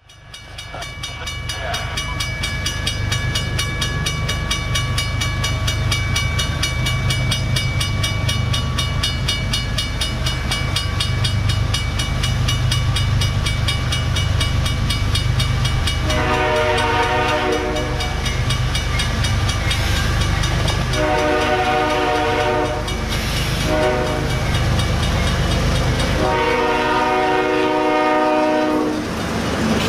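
A GE ES40DC diesel locomotive passes with its engine rumbling, growing louder over the first few seconds. About halfway through, its five-chime Nathan K5HL air horn sounds long, long, short, long: the grade-crossing signal.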